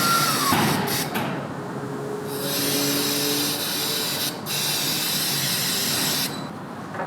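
Compressed air hissing steadily from a shop air tool for about four seconds, then cutting off sharply.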